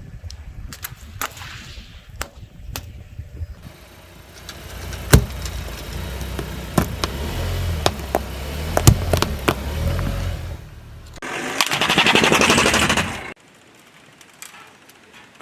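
A car tyre rolling over and crushing crunchy objects: a low engine and tyre rumble with scattered sharp cracks and snaps, then a loud burst of dense, rapid crackling for about two seconds that cuts off suddenly.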